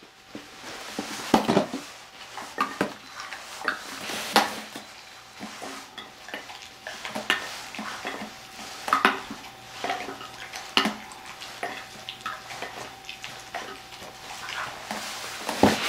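Dog eating treats out of a stainless steel bowl: irregular clinks and knocks of metal as its muzzle and the treats hit the bowl.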